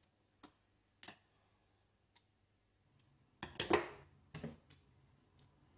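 A few light clicks and taps as small air pistol parts and a screwdriver are handled, then a louder burst of handling noise, a scuffle and knock, around three and a half to four and a half seconds in.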